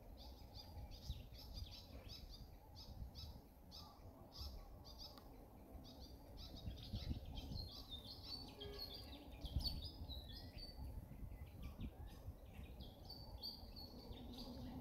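Small birds chirping, a steady run of short high chirps several times a second, over a low rumble with a couple of soft thumps.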